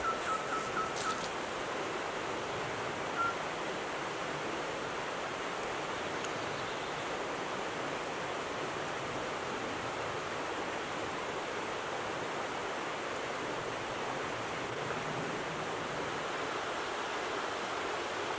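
Steady rushing hiss of open-air background noise. Rapid high chirps and a thin whistled tone fade out in the first second or so, and one short whistle comes about three seconds in.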